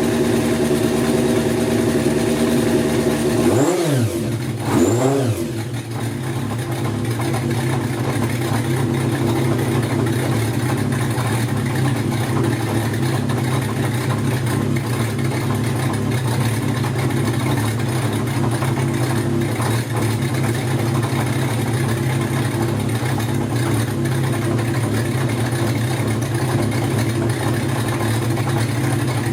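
Kawasaki Zephyr χ air-cooled inline-four motorcycle engine, fitted with racing carburettors and new Brisk racing spark plugs, running at idle. Its throttle is blipped twice in quick succession about four seconds in, the revs rising and falling, and it then settles to a lower, steady idle.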